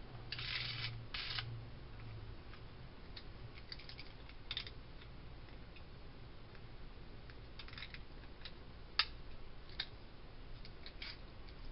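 Beyblade Burst top (Left Astro A5) spinning on the floor of a plastic stadium. A faint low hum fades over the first two seconds, and short scrapes and clicks come scattered throughout, with one sharp click about nine seconds in.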